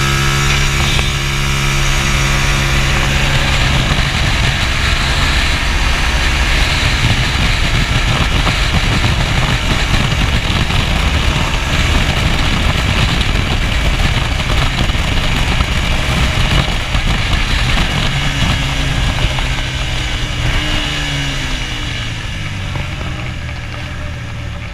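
Hyosung motorcycle engine running hard at track speed under heavy wind rush on the microphone. Near the end the engine note falls as the bike slows, and the sound fades out.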